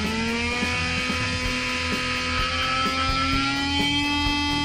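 Small DVD-ROM brushless motor running unloaded on a 30 A ESC, a pitched electric whine that rises slowly in pitch as the motor speeds up to high RPM.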